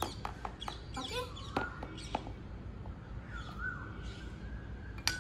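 Metal spoon tapping and scraping lumps of dry cornstarch in a plastic tub, giving a scatter of short, sharp clicks. A high bird-like call rises and falls twice in the background.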